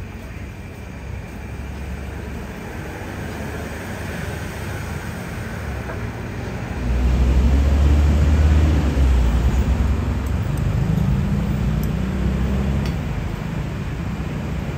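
Road traffic passing the stall: a steady low noise with a deep engine hum that grows clearly louder about halfway through, as a heavier vehicle goes by.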